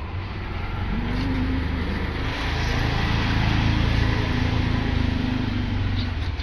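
A motor engine running with a low hum, growing louder over the first few seconds and falling away near the end.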